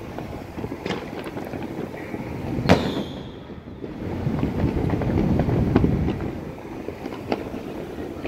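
Fireworks going off across the neighbourhood: scattered distant bangs and pops, with one loud sharp bang a little under three seconds in. A louder low rumble swells for a couple of seconds after it.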